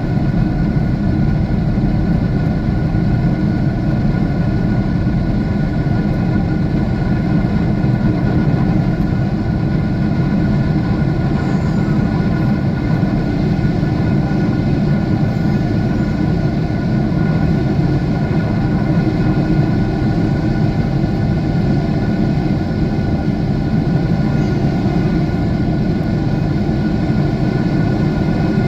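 Jet airliner cabin noise in cruise: a steady, deep engine and airflow rumble with a few faint steady tones above it.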